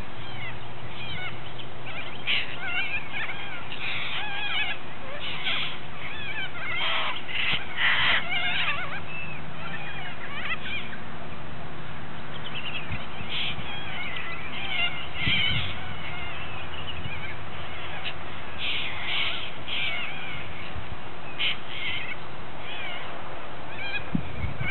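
A flock of little corellas calling: many harsh, wavering screeches overlapping, swelling into louder clusters and easing off again, over a steady low hum.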